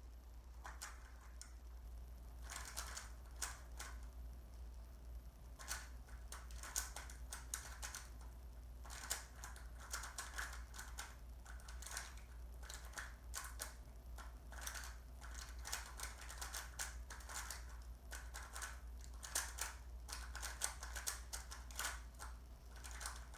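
Rubik's cube being turned quickly during a speedsolve: rapid clusters of plastic clicks and clacks from the layers turning, broken by two short pauses in the first third.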